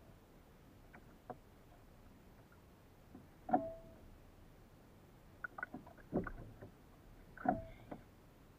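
Hobie kayak at sea with a few short knocks and splashes of water and gear against the hull while an angler fights a fish on a bent spinning rod; a couple of the louder ones carry a brief squeak. The loudest come in the middle and near the end.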